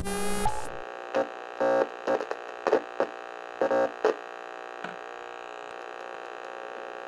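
Steady electronic hum made of several tones at once, stamped over a muted track. It opens with a brief glitchy burst of falling tones, and short louder stabs break through it for the first few seconds.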